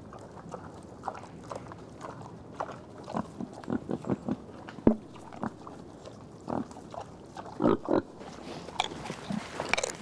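Wild boars grunting and chewing acorns while rooting in leaf litter: a run of short, irregular grunts and crunches, with a sharp crack about five seconds in.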